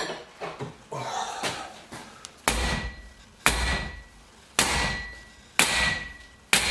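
Hammer blows on the metal body of a car's automatic belt tensioner as it is knocked apart: about one sharp ringing strike a second, starting about two and a half seconds in, after some softer handling knocks.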